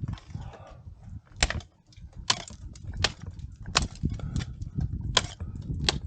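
Ice tools and crampons striking the ice of a frozen waterfall during a climb: a run of sharp, separate hits about one every 0.7 seconds, over a steady low rumble.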